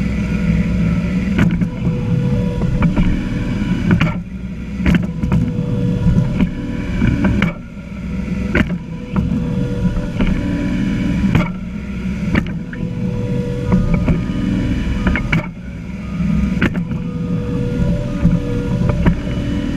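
John Deere 1025R compact tractor's three-cylinder diesel engine running steadily under way, with frequent sharp knocks and rattles as the sod-pushing attachment moves along.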